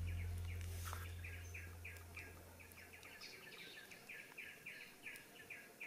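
Faint, regular chirping from a bird, short high notes a few times a second, over the fading tail of background music. There is one light click about a second in.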